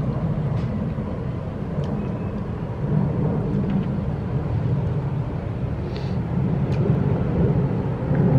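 Steady low rumble of a car in motion, engine and road noise heard inside the cabin, with a few faint clicks.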